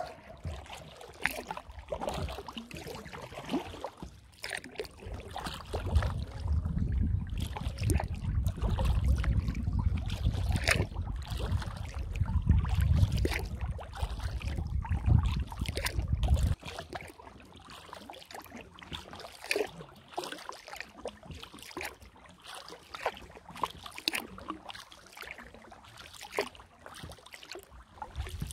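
Kayak paddling on calm water: the paddle blades dip and drip, with many small splashes and clicks. A low rumble starts about five seconds in and cuts off suddenly just past the middle.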